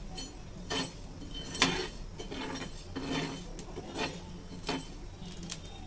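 A steel spoon scraping across a flat tawa (griddle) while stirring dry-roasting whole spices, fenugreek and mustard seeds, in repeated strokes a little more than one a second.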